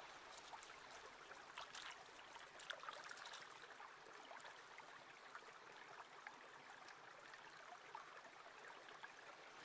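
Near silence: a faint even hiss with a few tiny ticks.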